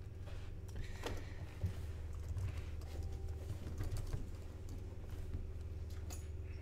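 Typing on a computer keyboard: scattered key clicks over a steady low hum.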